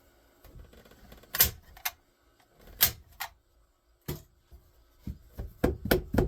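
Hammer blows on wood: a few separate sharp strikes, then a steady run of quick blows about four a second starting about five seconds in.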